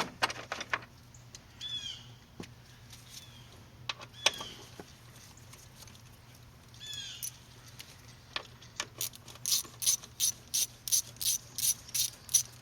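Ratchet wrench clicking in a quick even run of about four clicks a second near the end, loosening a fitting while the air hoses come off the throttle body. Before it come scattered clicks and a few short squeaks.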